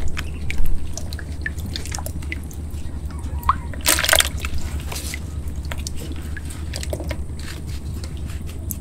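Water dripping and sloshing with scattered small drips and splashes as a loach trap is handled, with one louder splash about four seconds in and a steady low hum underneath.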